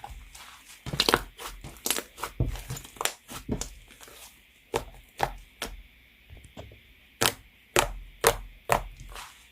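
White slime being squeezed and pressed by hand, giving an irregular run of sharp pops and crackles, several louder snaps in the second half.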